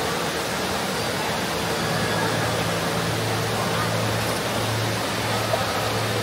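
Busy shopping-mall ambience: a steady rush of noise with indistinct chatter of many people underneath.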